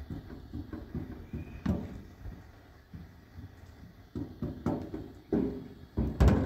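A series of irregular dull thumps and knocks, the loudest a double knock near the end.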